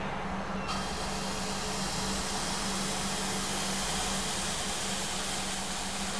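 Pancake batter sizzling as it is poured into a hot frying pan: the hiss comes in suddenly about a second in and holds steady, over a low steady hum.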